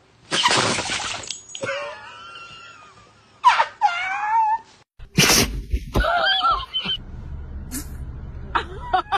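Dogs sneezing, three sharp sneezes a few seconds apart. Each is followed by a short, wavering, high-pitched vocal sound.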